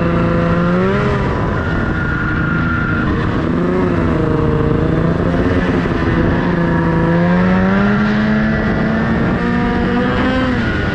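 Snowmobile engine running under a rider, its pitch rising and falling as the throttle is worked, over a steady rushing noise. The pitch climbs to its highest about eight to ten seconds in, then drops sharply near the end.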